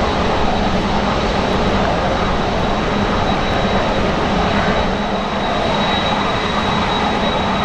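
Jet engines of an Airbus A350-941 airliner (Rolls-Royce Trent XWB turbofans) running loud and steady: a dense rushing noise with a faint, steady high whine.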